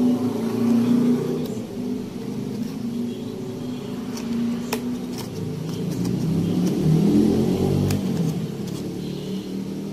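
A steady low engine rumble that swells and rises in pitch about seven seconds in, with a few light clicks of a cardboard box being handled.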